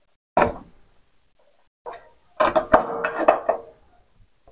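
Metal clinks and knocks of a socket spanner fitting onto and turning the steel nuts of an electric geyser's heating-element flange, as the nuts are tightened evenly to seal the gasket. A short clink comes near the start, then a longer run of clinks in the second half.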